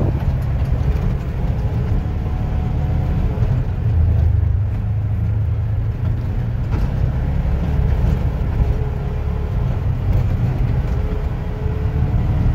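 2020 Polaris Ranger Crew side-by-side driving along a trail: a steady low engine and drivetrain rumble with a faint whine above it.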